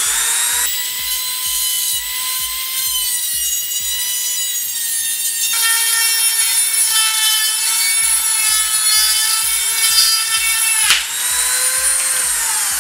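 Wen rotary tool's abrasive cutoff wheel grinding into a steel screw: a steady high motor whine over a harsh grinding hiss, its pattern shifting about halfway through as the load changes. Near the end comes a sharp crack as the cutoff wheel, pressed too hard, breaks.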